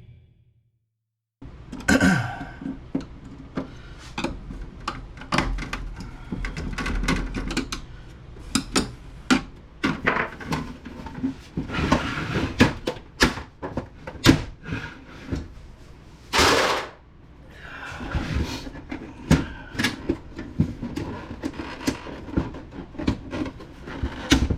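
Plastic casing and parts of an HP Deskjet 2050 inkjet printer clicking, knocking and rattling as it is taken apart by hand, starting after a moment of silence. One louder, noisier burst stands out about two-thirds of the way through.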